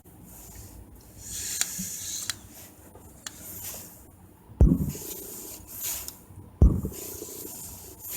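Hands handling a camera lens and small parts during disassembly on a work surface: a scraping rub with a few small clicks, then two dull knocks about two seconds apart.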